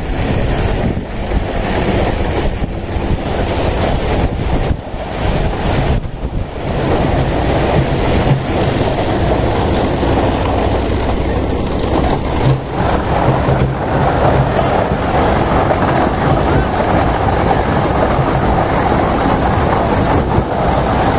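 Coir-processing machinery and its conveyor running steadily with a low hum, while wind rumbles on the microphone.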